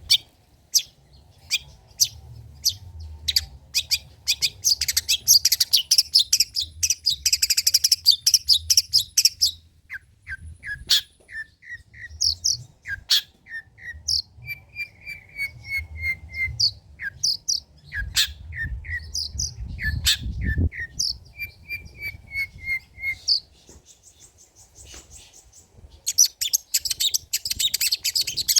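Long-tailed shrike singing a fast, varied song: rapid ticking notes and harsh chattering, broken by runs of short, evenly repeated whistled notes. A faint low rumble sits underneath.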